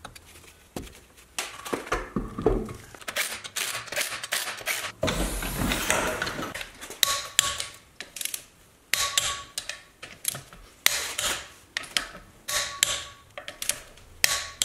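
Metallic clicks and knocks of hand tools on a car's front wheel assembly, then a torque wrench tightening the wheel bolts, with a sharp ringing click every second or two in the second half.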